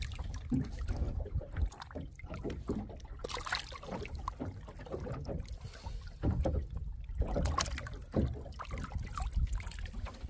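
Water splashing and dripping, with scattered knocks and handling noise aboard a small open fishing boat as a longline is hauled in by hand, over a steady low rumble.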